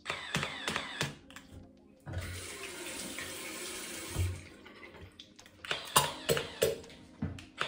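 Water splashing into a bathroom sink for about three seconds as excess water from a water flosser is spat out, with a low thud partway through. Background music plays before and after it.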